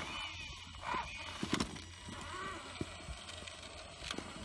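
Electric Traxxas Summit RC truck crawling slowly up rocks: scattered knocks and clicks of its tyres and chassis against the stone.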